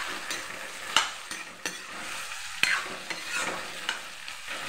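Raw baby jackfruit pieces sizzling in oil as they are stirred and sautéed in a metal kadai. The stirring utensil clicks and scrapes against the pan several times, the sharpest knock about a second in.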